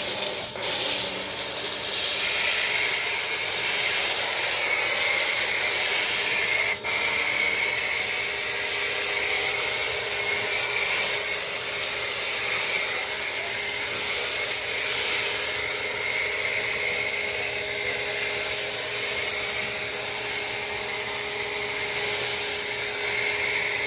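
Ryobi electric pressure washer spraying through a foam cannon: a steady hiss of spray over the steady hum of the electric pump motor, with a brief dip about seven seconds in.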